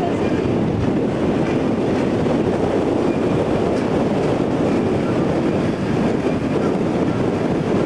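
Steady rumbling rush of moving water with wind buffeting the microphone, as from a small boat under way.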